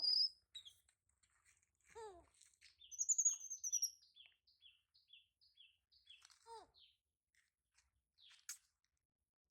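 High-pitched animal chirping calls: a shrill falling whistle about three seconds in, then a run of even, short chirps at about three a second for some three seconds. Two short falling squeaky calls come at about two and six and a half seconds, and a sharp click near the end.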